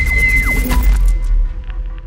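Cinematic logo sting of sound-design effects: a deep low boom that rumbles on for about a second and a half, with a steady high tone over it and a pitch glide falling through it that ends just under a second in.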